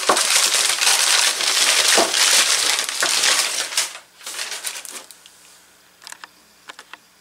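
Packaging crinkling and rustling loudly for about four seconds as it is handled and pulled open, dying away about five seconds in, followed by a few light clicks.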